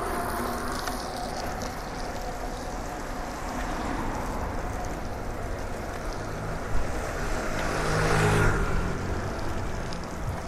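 Wind and tyre noise from a bicycle ridden along a wet street. A car passes close by about eight seconds in, swelling and then fading.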